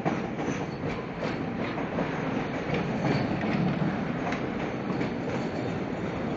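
Chicago 'L' rapid-transit train, a 2600-series car, rolling along the elevated track. A steady rumble carries frequent clicks of the wheels over the rail joints.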